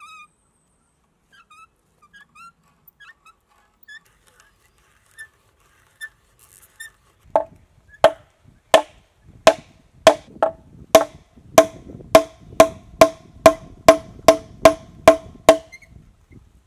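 A hammer driving a wooden peg into a drilled hole in a log: about seventeen sharp knocks, each with a short ring, starting about seven seconds in and coming faster, from roughly one and a half to more than two a second.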